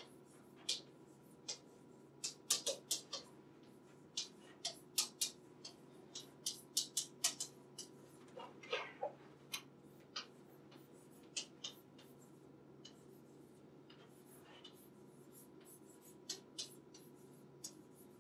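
Chalk writing on a blackboard: quick runs of sharp taps and short scrapes as letters are written, with pauses between the runs, over a faint steady room hum.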